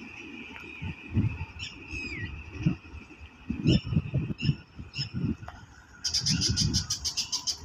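Birds calling with short high chirps and a falling note. A fast, rattling run of high calls begins about six seconds in. An uneven low rumble runs underneath.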